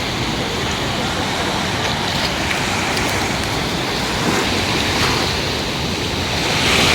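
Mediterranean sea surf washing steadily onto the beach, swelling a little louder near the end.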